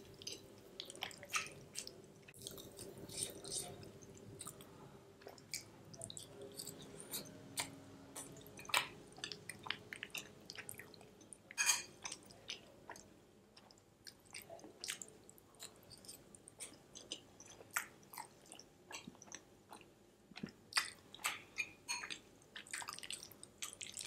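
Close-miked chewing of soft, creamy macaroni and cheese: quiet wet mouth smacks and clicks coming at irregular intervals.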